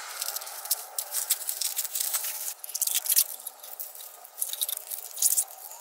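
Masking tape being peeled off and crumpled: irregular crackling and rustling in short bursts, loudest around three seconds in and again about five seconds in.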